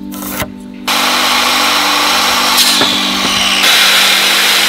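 Cordless circular saw starting up about a second in and cutting through a wooden plank, a loud steady saw noise that holds to the end.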